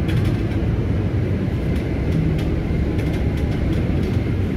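Inside a moving city bus: the steady low rumble of the engine and road noise, with small rattles now and then.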